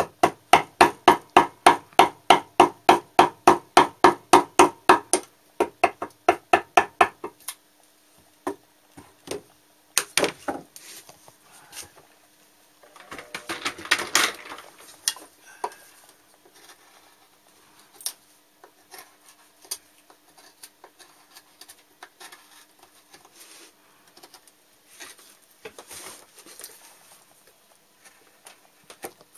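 A hammer strikes the steel-hooped end of a wood-carving chisel, driving it into wood in steady, sharp blows, about three or four a second, for roughly five seconds. Lighter, quicker taps follow. After that come scattered knocks, a burst of scraping around the middle, and faint clicks and scrapes of paring by hand.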